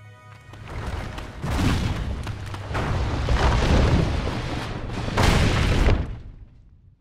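A collapsing rock cave: heavy boulders falling and crashing in a continuous loud rumble with several louder crashes, ending abruptly about six seconds in.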